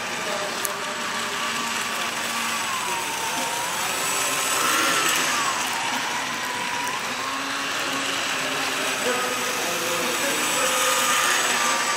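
A steady rushing, whirring machine noise with a faint whine that slowly wavers up and down in pitch, like a small motor.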